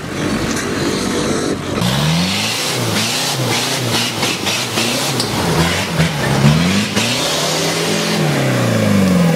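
Nissan Patrol off-road 4x4's engine revving up and down under load on a steep, rocky climb. The pitch rises and falls roughly once a second from about two seconds in, ending in a longer rise near the end.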